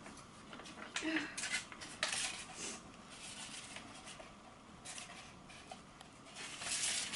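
Parchment-paper scrolls rustling and crinkling as they are handled and rolled up, in short irregular bursts.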